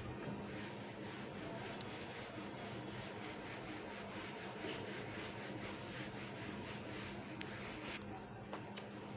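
Whiteboard duster wiping the board in quick, regular back-and-forth strokes, several a second, stopping about eight seconds in.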